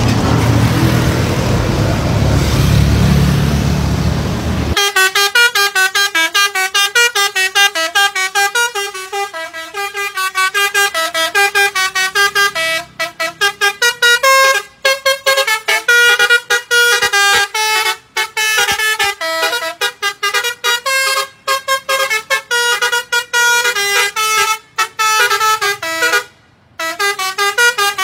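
A truck's bank of six chrome telolet air horns, driven by a 32-tone music box, plays a fast melody of short horn notes with a few brief pauses. For about the first five seconds, before the horns start, there is a steady rushing noise.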